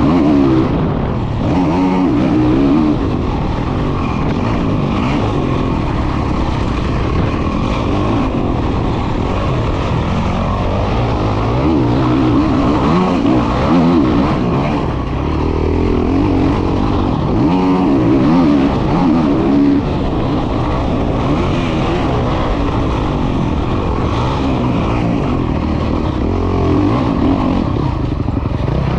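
Honda CRF450 single-cylinder four-stroke motocross bike engine running hard, its pitch rising and falling again and again as the rider opens and shuts the throttle around the track, heard from the rider's helmet.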